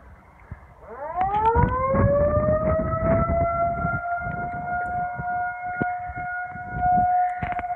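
Federal Signal 2001-130 electromechanical outdoor warning siren starting up about a second in: its pitch winds up quickly, then settles into a loud, steady wail.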